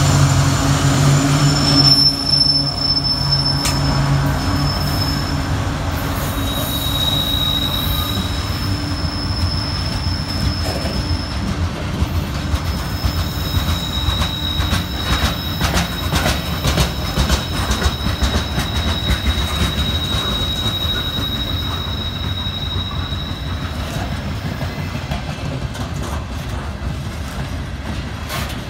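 Slow-moving freight train passing close by: the trailing diesel locomotive's engine in the first couple of seconds, then freight cars rolling past. Through the rest come long, high, steady squeals from wheels and brake shoes, with the brakes held on the whole way over wet rails, and clicks of wheels over rail joints.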